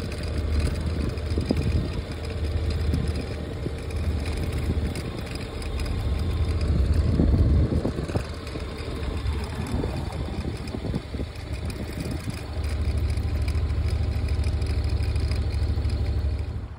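Riding a motorcycle, heard from the bike: the engine runs under a heavy low rumble of wind on the microphone, and it swells and eases with speed. It is loudest about seven seconds in and holds steadier over the last few seconds.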